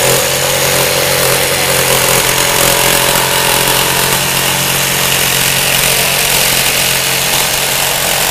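Jigsaw fitted with a Lenox B318TC blade sawing through metal at full speed, a steady, unbroken cut with a constant motor hum. The blade goes through quickly without stalling.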